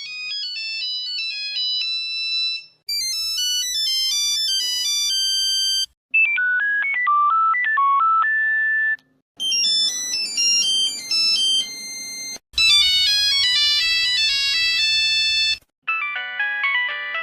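Nokia mobile phone ringtones played one after another: six short melodic excerpts of about three seconds each, separated by brief gaps. The early ones are thin beeping note sequences and the later ones are fuller, with bass underneath.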